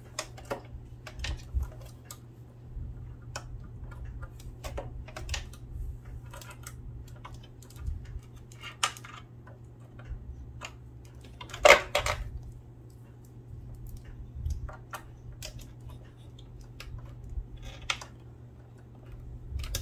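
Small metal parts of a Singer sewing machine clicking and tapping as they are handled and fitted back into place, irregular light clicks with one louder knock a little past the middle. A steady low hum sits underneath.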